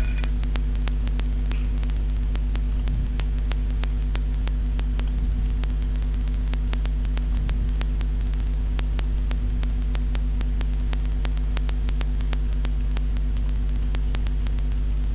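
Steady electrical buzzing hum with static, broken by a quick stream of sharp irregular clicks.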